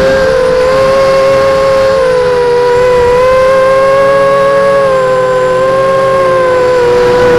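Multirotor drone's electric motors and propellers whining steadily at close range, several slightly different pitches together that waver gently up and down as the throttle shifts.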